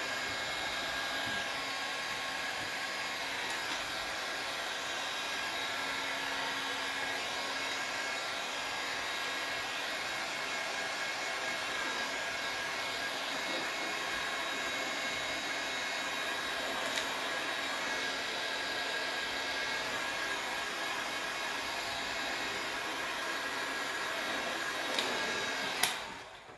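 Handheld heat gun blowing steadily, a constant rush of air with a faint whine, drying wet sealer on decoupage weave. It cuts off about a second before the end.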